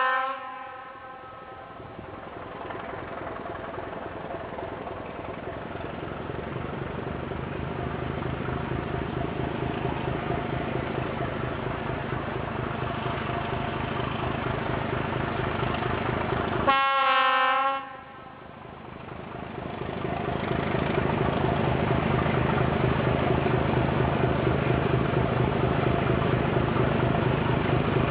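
Diesel locomotive approaching with its engine running, growing steadily louder. A horn blast ends just after the start, and a second blast of about a second sounds about two-thirds of the way through. The engine then runs loud and steady as it draws near.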